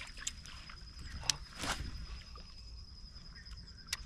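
An insect keeps up a steady high-pitched trill, joined by a few sharp clicks and knocks, the loudest about a second in.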